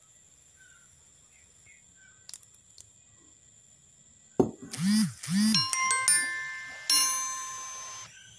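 Near silence for about four seconds, then a sudden short chiming jingle: two low bouncing glides followed by two bell-like chime strikes, the last one ringing out and fading.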